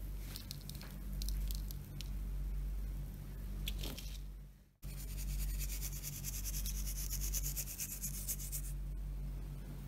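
Soft coconut sponge cake torn apart by hand, with faint moist crackling, cutting off just under five seconds in. Then desiccated coconut is sprinkled over a syrup-soaked cake, a dense fine pattering lasting about four seconds, over a steady low hum.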